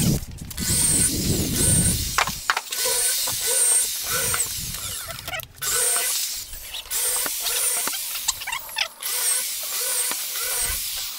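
Electric drill boring holes into the wooden top panel of a subwoofer cabinet, running in long spurts with a couple of short pauses between holes.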